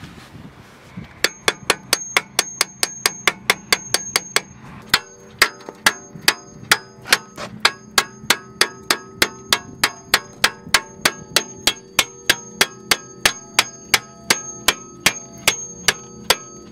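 Steady, rapid claw-hammer blows on the rusted brake disc of a 20-year-old BMW, about three a second, each with a metallic ring. About five seconds in, the ring turns lower and fuller. The hammering is meant to knock loose rust that has seized the brake so the car won't roll.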